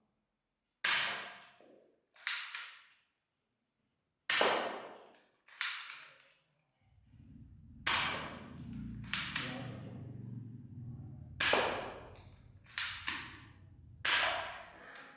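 Toy gun firing about nine single shots at uneven intervals. Each is a sharp crack that fades away over about half a second. A low steady hum comes in about seven seconds in.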